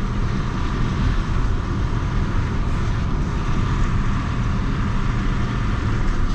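Swaraj 733 FE tractor's three-cylinder diesel engine running steadily while driving on the road.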